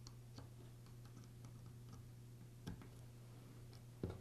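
Near silence with a steady low hum and a few faint clicks from small plastic parts and wires being handled, as cord wires are pressed into the push-in connectors of a power-tool switch. The sharpest click comes near the end.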